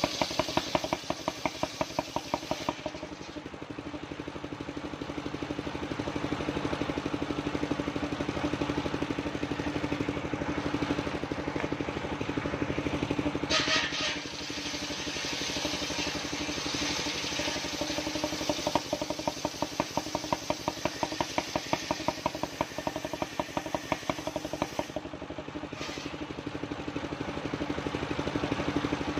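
Engine of a mobile circular-saw sawmill running steadily with rhythmic firing pulses, its loudness swelling and easing as the load changes. A brief scraping burst comes about halfway through.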